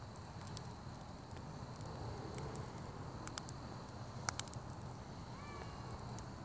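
Wood campfire crackling: scattered sharp pops and snaps, the loudest about two-thirds of the way through, over a low steady rush of the burning logs.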